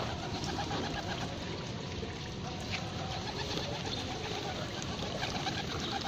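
A flock of feral rock pigeons cooing repeatedly over steady background noise.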